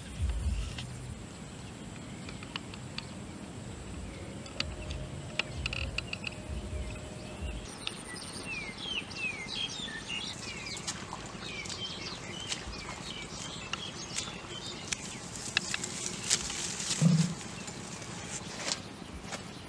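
Outdoor field ambience with birds chirping from about eight seconds in, among scattered clicks and rustles. In the first part, soft low thumps of footsteps on grass.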